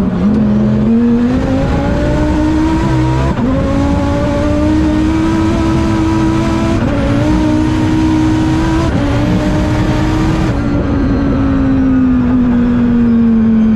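Twin-turbo 8.4-litre V10 of a 2014 Dodge Viper at full throttle, heard from inside the cabin, its pitch climbing with brief breaks at the gear changes. From about ten seconds in the pitch slowly falls as it comes off the power.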